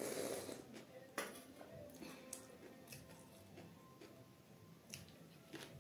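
A loud slurping sip of green tea from a small steel mug, then a sharp clink about a second in as the mug is set down on a glass tabletop. Faint small clicks of eating follow.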